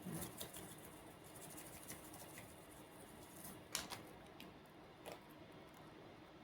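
Faint, scattered clicks and light taps of spice containers being handled over a kitchen counter, a small cluster at the start and a few sharper ticks later on.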